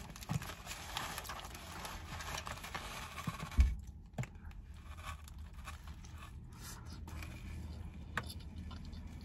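Rustling and small handling noises of wrapped takeout food being handled, with a soft thump about three and a half seconds in, then fainter scattered clicks.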